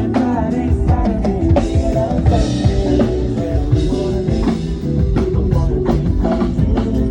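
Live band playing an instrumental passage, with a drum kit's kick and snare hits driving a steady beat over bass and sustained keyboard or guitar notes.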